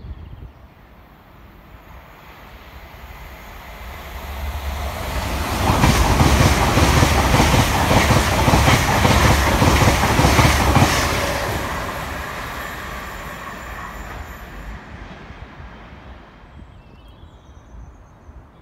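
LNER Azuma Hitachi high-speed electric train approaching and passing close by. It is a rising rush of wheel and air noise, loudest for about five seconds with a rapid, even clatter of wheels over the rails as the carriages go by, then fading away.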